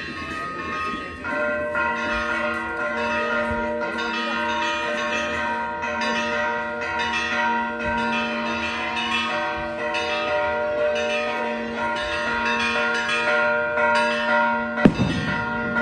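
Church bells ringing in a continuous peal, starting about a second in, with fresh strikes every second or so and each tone ringing on under the next.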